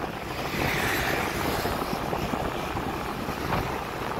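Motorcycle riding noise: steady wind rush on the microphone over the bike's engine and tyre noise on the road, growing louder about half a second in.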